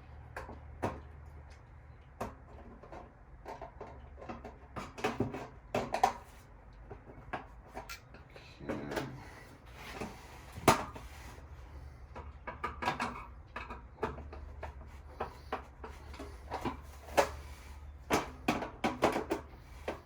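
Irregular metallic clicks, clinks and small knocks of a hand tool tightening bolts on a gas patio heater's metal parts, some coming in quick runs, over a low steady hum.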